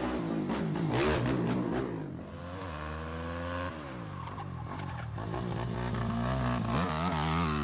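Sport quad ATV engines revving hard under throttle, the pitch climbing and falling again several times.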